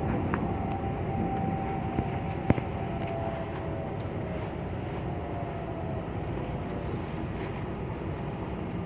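Inside an EMU900 electric commuter train slowing into a station: steady rumble of the running gear with a thin motor whine that falls slowly in pitch as it brakes, and a single sharp click about two and a half seconds in.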